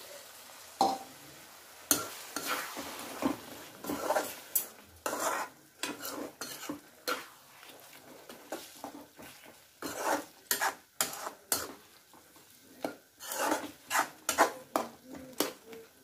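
Perforated metal spatula stirring a wet tomato-onion masala in an aluminium kadai, with irregular clanks and scrapes against the pan about once or twice a second over a light sizzle.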